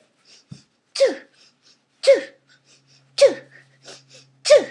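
Exaggerated comic hiccups voiced for a ventriloquist's puppet: four sharp hics about a second apart, each a short squeaky cry that falls steeply in pitch.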